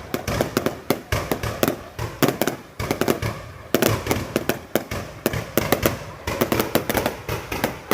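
Fireworks going off in rapid succession: dense runs of sharp bangs and crackles, broken by a few brief lulls.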